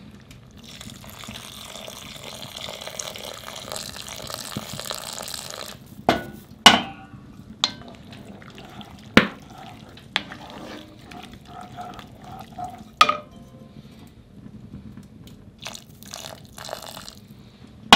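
Broth poured into a pot of tripe and vegetables, a steady splashing pour for about five seconds. Then a wooden spoon stirs the tripe, knocking sharply against the pot several times.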